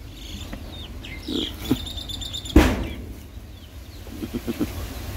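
Farmyard chickens clucking in short low pulses, with a bird's high chirp, and one sharp knock about two and a half seconds in.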